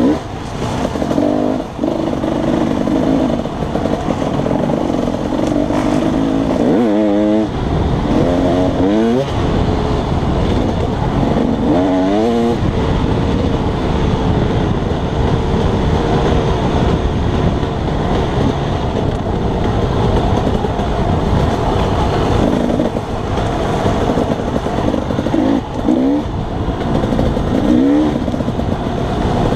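Dirt bike engine running hard while the bike is ridden along a trail. Its pitch climbs sharply several times as the throttle is opened and the revs rise.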